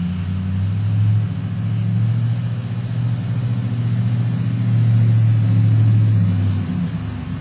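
A motor running steadily with a low hum, a little louder in the middle and easing near the end.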